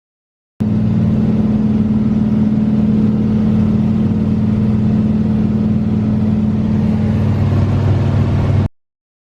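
Steady low drone of a small seaplane's engine and propeller in flight, cutting in abruptly just after the start and ending sharply near the end.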